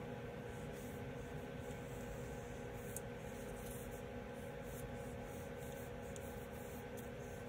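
Colored pencil scratching on paper in short strokes as small dots are coloured in. It is faint, over a steady low hum.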